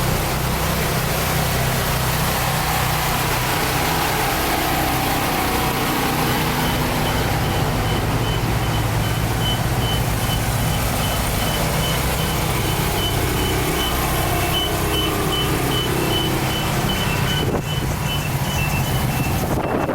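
A large vehicle's engine running steadily. From about six seconds in, a reversing alarm gives a run of evenly spaced high beeps.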